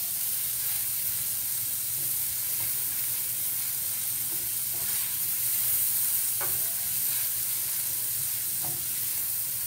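Sliced onions and garlic sizzling in oil in a stainless steel skillet, stirred with a wooden spoon: a steady frying hiss with a few brief sounds of the spoon moving through the pan.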